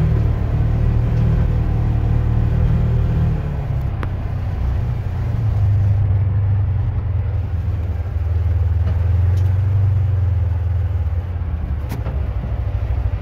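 2020 Polaris Ranger Crew side-by-side's engine running under way, a steady low drone that eases off briefly about three and a half seconds in and again around eight seconds. A couple of sharp knocks cut through it.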